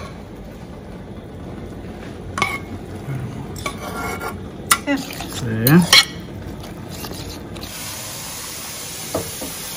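A silicone spatula scrapes fried onion and beet greens out of a frying pan into a bowl, with a few scrapes and knocks of utensil and pan. About eight seconds in, a kitchen tap starts running steadily into a pot in the sink, cold water for cooling boiled beets.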